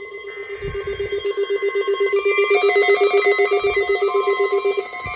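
Weather alert radios sounding their alarms for a weekly warning alarm test. A fast-pulsing alarm tone stops shortly before the end. About two and a half seconds in, a second alarm joins, beeping in alternating pitches. Near the end a steady high warning tone starts.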